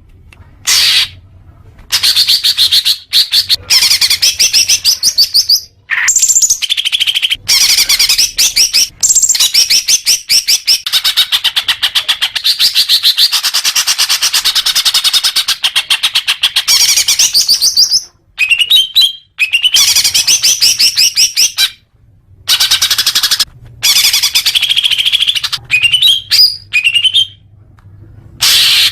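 Greater green leafbird (cucak hijau) singing in long, fast runs of rapid chirping and warbling notes, broken by a few brief pauses.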